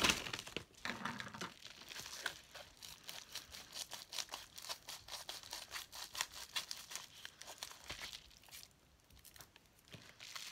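Crinkling and crackling of a white plastic packaging pouch as it is handled and turned over by hand, with a quieter pause near the end.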